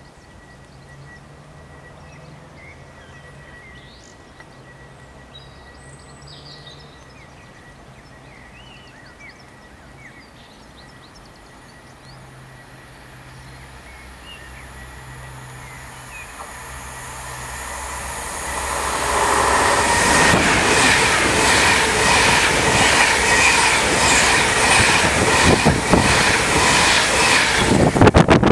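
Class 390 Pendolino electric train approaching and passing: a rush of wheel and rail noise that swells over the second half and turns loud, with rapid clicking of wheels over rail joints through the last several seconds. Faint bird chirps come before it.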